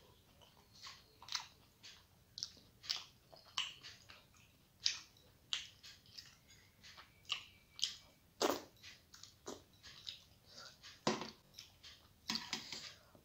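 Close-up eating sounds: chewing a mouthful of rice with dal, heard as an irregular string of short, wet mouth clicks and smacks. A few louder ones come near the middle and a cluster near the end.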